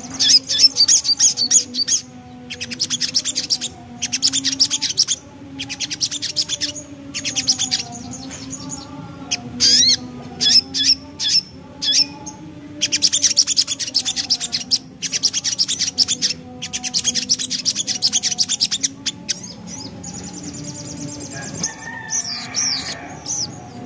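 Crimson sunbird (sogon) singing its rapid, high chattering trill in phrases about a second long, repeated with short pauses.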